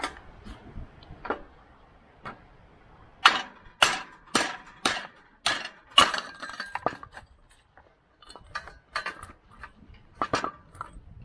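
Hammer blows on a chain breaker, driving the pin out of the hay elevator's steel chain: six sharp metallic strikes about two a second, then lighter clinks of metal on metal.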